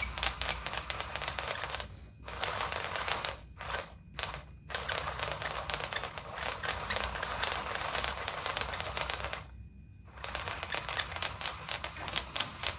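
Eight-legged walking robot with 3D-printed plastic leg linkages clattering and tapping on a laminate floor in a fast irregular rattle, over the whirr of its two small geared DC motors. The clatter stops briefly about two seconds in, a few times around four seconds, and again near ten seconds.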